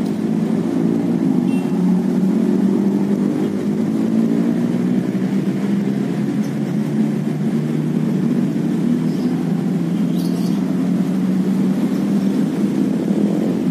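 A small engine running steadily at an even, low pitch, with no change in speed.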